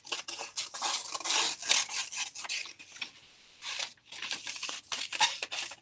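Rapid scratchy rubbing on paper, stroke after stroke, with a short pause about three seconds in.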